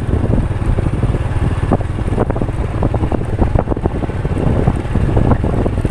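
Wind buffeting the microphone over a steady low engine rumble from the vehicle carrying the camera along a rough dirt road.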